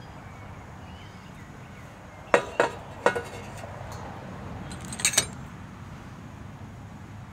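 Stainless steel canteen cup and metal plate clinking together as noodles are tipped out and plated: three sharp metal-on-metal clinks a little past two seconds in, then another quick pair about five seconds in. A steady low rumble of wind on the microphone runs underneath.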